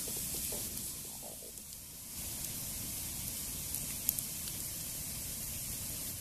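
Split-log wood campfire burning: a steady hiss with a few sharp crackles, two of them close together about four seconds in.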